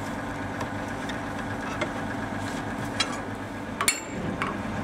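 Volvo PL3005D pipelayer's diesel engine idling steadily, with about four sharp metallic knocks of a sledgehammer on the steel upper adapter pin as it is driven out; the loudest knock comes a little before the end.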